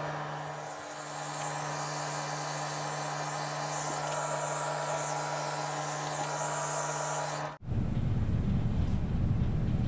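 Orbital sander running steadily, a hum with hiss, wet-sanding clear coat with 1500-grit Trizact. About three-quarters of the way through it cuts off abruptly and a low rumbling noise takes over.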